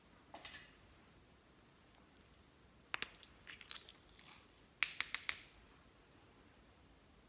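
Small hard objects clicking and clattering: two sharp clicks about three seconds in, a light scratchy clatter, then four sharp clicks in quick succession about five seconds in.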